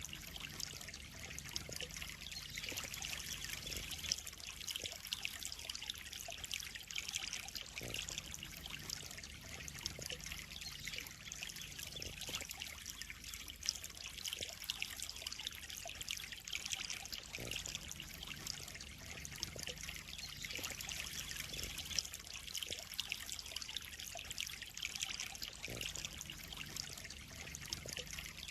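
Water trickling and pouring steadily into a koi pond, a continuous patter of small splashes.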